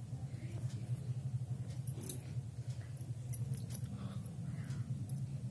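Glass or metal bangles clinking in scattered small ticks as the hands move, over a steady low hum.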